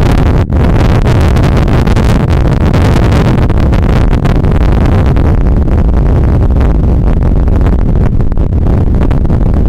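Storm wind blasting the microphone, a loud, steady rumble, over heavy surf breaking and washing up the beach.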